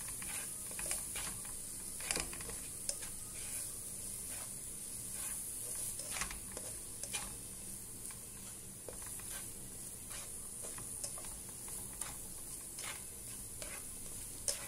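Onion-tomato masala with spice powders sizzling in a non-stick pot while a spatula stirs and scrapes it: irregular scrapes and taps over a steady sizzle. The masala is being sautéed until the raw smell of the powders is gone.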